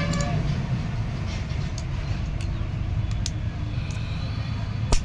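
Petrol chainsaw engine running with a low, steady rumble, and a few light clicks and one sharp click near the end.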